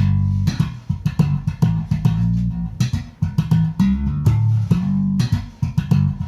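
Slap bass playing on a Harley Benton MM 85-A SB Deluxe active bass, on its jazz-style pickup setting with coils 2 and 4 in parallel. Low notes are punctuated by rapid, sharp slaps and pops.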